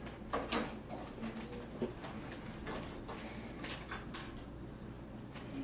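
Quiet room tone: a low steady hum with a few faint scattered clicks and rustles.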